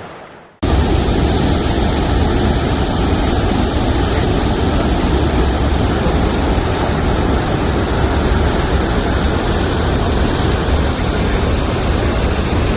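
Waterfall rushing, a loud, steady roar of falling water with a deep rumble underneath. It cuts in abruptly just over half a second in, after a quieter rush fades out.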